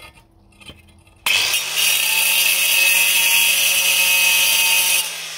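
Electric wet stone-cutting saw starts about a second in and cuts a small corner off a black stone slab, loud and steady. The cutting stops abruptly near the end and the motor winds down.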